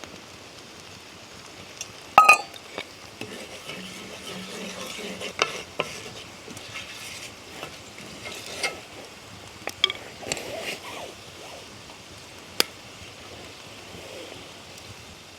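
Food sizzling in a cast-iron pan over an open fire while a utensil stirs it, with sharp clinks and scrapes against the pan. The loudest is a ringing clink about two seconds in.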